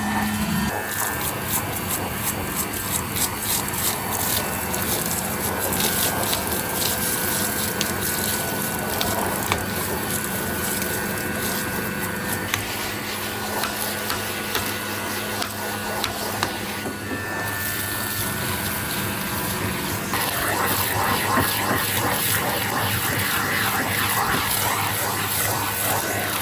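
Goodmans TurboMax vacuum cleaner running with a steady rush of motor and airflow and scattered clicks. The tone shifts about halfway through and grows a little louder about three-quarters of the way in.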